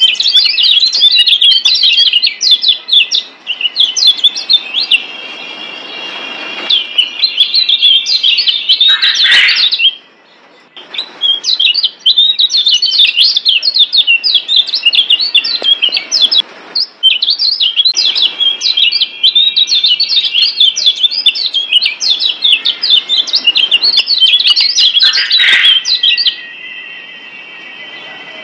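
Kecial kuning (Lombok yellow white-eye, a Zosterops) singing long runs of fast, high twittering chirps, with short breaks about 6, 10 and 17 seconds in. The song stops a couple of seconds before the end.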